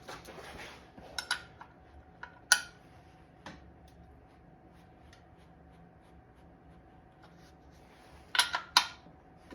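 Metal hand tools, sockets and a ratchet, clinking as they are handled: a few sharp clinks in the first few seconds, a quiet stretch, then two louder clinks near the end.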